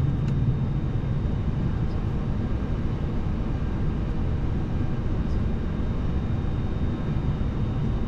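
Cockpit noise of a Boeing 737-800 taxiing on its CFM56-7B engines at idle: a steady rumble with a faint, steady high tone above it.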